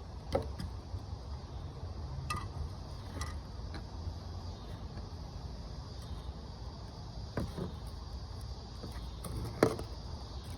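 Scattered sharp clicks and taps of hands fitting a plastic and metal fuel pump module and its lock ring onto a truck's gas tank, about five in all, the loudest near the end, over a steady low background hum.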